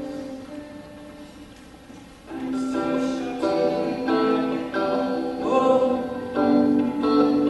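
A song performed live on guitar and voices: a soft, held opening, then about two seconds in the guitar and singing come in louder with chord changes every half second or so.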